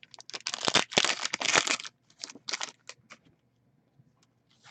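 A hockey card pack's wrapper being torn open and crinkled, in dense crackling bursts for about two seconds, then a few fainter rustles.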